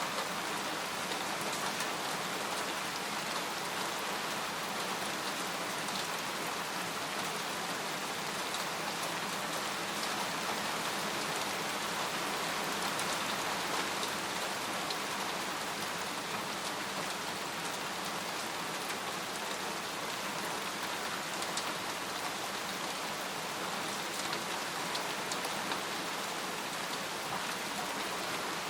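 Steady rain falling on a tent: a dense, even hiss with scattered single drops ticking through it.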